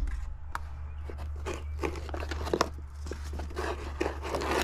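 Rustling, crinkling and scraping of a cardboard box and its packing as hands reach in and handle the contents, in irregular short bursts over a steady low hum.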